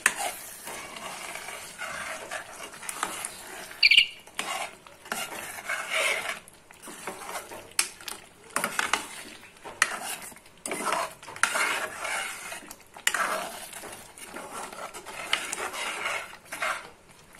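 A metal ladle stirring and scraping thick mutton curry in an aluminium pressure-cooker pot, in irregular strokes. There is one short ringing clink of the ladle on the pot about four seconds in.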